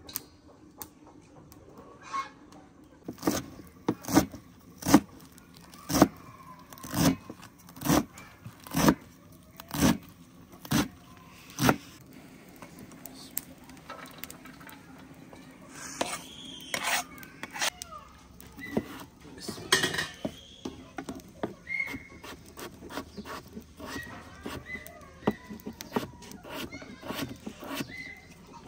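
Kitchen utensils at work: about ten sharp, evenly spaced knocks, roughly one a second, then lighter clattering and scraping.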